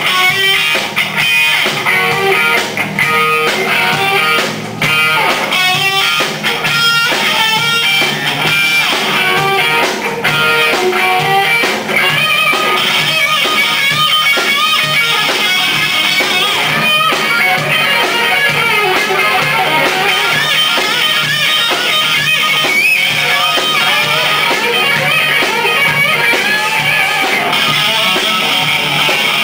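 Live electric guitars playing hard rock, loud throughout, with a lead guitar running quick, shifting melodic lines over a second guitar.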